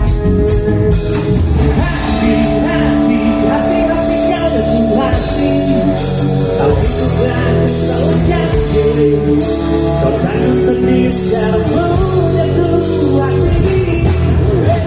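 Live rock band playing: drum kit with cymbal crashes, bass and guitar under a sung vocal line.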